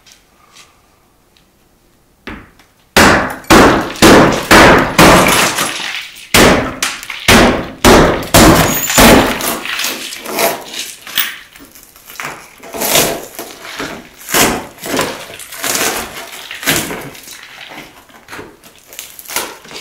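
The 1993 Honda Acty's shattered windshield glass being struck and broken out with a hand tool: a run of sharp strikes with crunching, crackling glass, starting about two seconds in. The strikes are loudest over the next several seconds, then turn into a quicker flurry of smaller hits.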